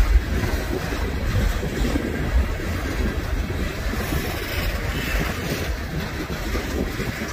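Freight train rolling past, a steady rumble of wheels and cars on the rails.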